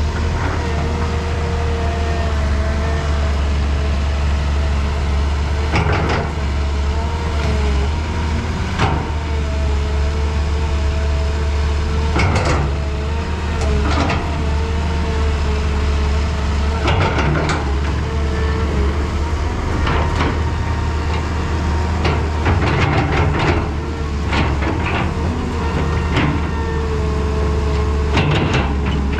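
Excavator's diesel engine running steadily, with a wavering whine over it and short clanks every few seconds as it works.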